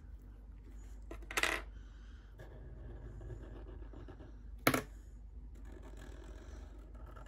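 Small, sharp clicks of a Sharpie marker being handled, about a second and a half in and again near five seconds, with the faint rubbing of the marker tip tracing lines on paper between them.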